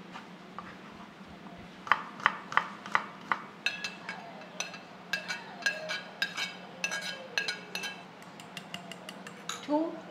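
Metal spoon clinking and scraping against a ceramic plate and bowl while chopped green onion is swept into a bowl of minced meat. Sharp clinks start about two seconds in, several a second, many with a short ring, and thin out near the end.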